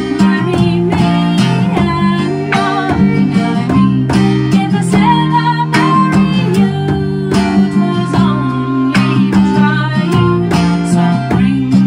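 Acoustic folk band playing an English folk song: a woman singing over strummed acoustic guitar and fiddle, at a steady, full level.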